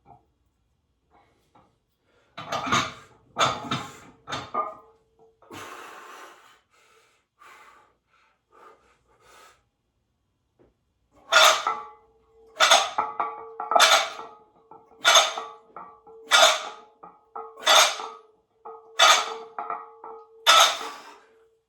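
Iron weight plates clanking during a set of lifts, a loud clank on each rep about every 1.3 seconds, eight times in the second half, with a metallic ring held between them. A few looser clanks come earlier as the weight is handled.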